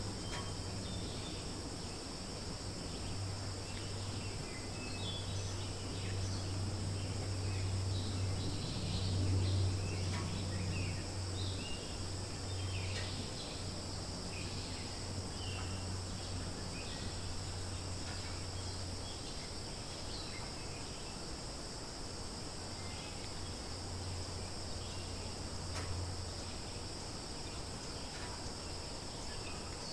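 Outdoor ambience dominated by a steady, high-pitched insect chorus, over a continuous low hum, with scattered short faint sounds.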